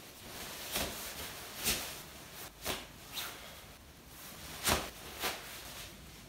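Kimono fabric rustling in about six short swishes as the sleeves are tied back with a tasuki cord.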